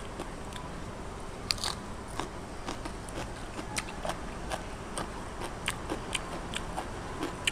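A person chewing and crunching crisp food: sharp crunches at irregular intervals, the loudest about a second and a half in, over a steady low hiss.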